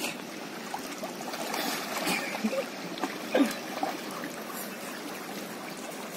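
Steady rush of a muddy, rain-swollen river, with splashing and sloshing from people wading and swimming through it with a net. The splashes come and go, the loudest about three and a half seconds in.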